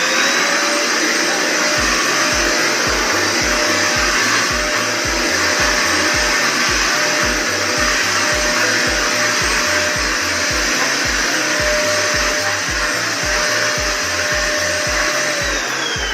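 JK-8 1000-watt budget vacuum cleaner running at full suction on a doormat, a steady loud rush with a high whine; the motor winds down near the end. A steady beat of background music plays underneath.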